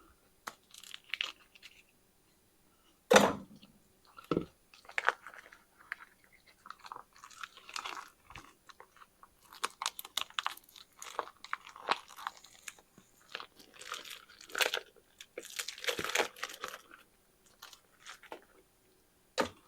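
Raw ground pork being squeezed and scraped out of its cut plastic package into a mixing bowl: irregular wet squishing and crackling of meat and wrapper, with one sharp knock about three seconds in.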